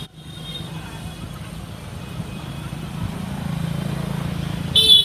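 A motor vehicle engine running with a steady low rumble. Near the end comes a short, loud, high-pitched beep.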